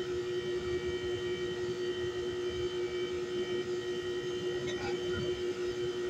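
Steady mechanical hum with one constant tone from outdoor heat pump condenser units running.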